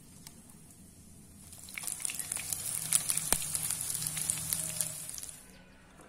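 Spoonfuls of corn batter frying in shallow oil in a nonstick pan: a steady high sizzle full of sharp crackling pops. It starts about two seconds in and cuts off abruptly near the end.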